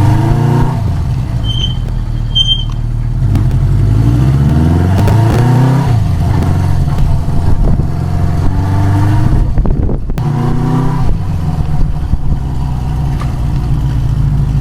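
1973 Honda CB350 Four's inline four-cylinder engine running while the motorcycle is ridden, revving up and dropping back several times. Two brief high squeaks about two seconds in.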